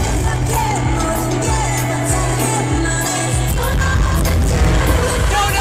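K-pop song performed live: female singing over a heavy electronic beat with a steady thumping kick drum.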